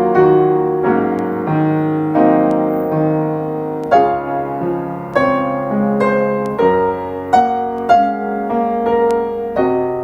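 Piano playing a slow, gentle piece: a melody over chords, with a new note or chord struck roughly every half second and each one ringing and fading.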